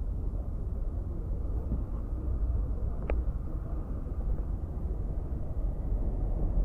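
Steady low rumble of a motorcycle riding slowly, mixed with wind noise on the microphone, with one short sharp click about three seconds in.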